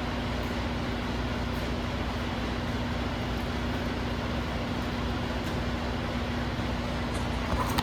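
John Deere 450C crawler dozer's diesel engine running steadily, with a constant hum over a low rumble.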